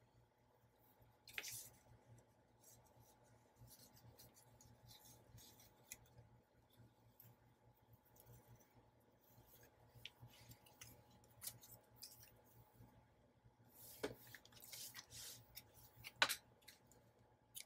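Faint paper-crafting handling sounds: light snips, rustles and ticks of paper being worked, with a few sharper clicks, one about a second and a half in and two more near the end.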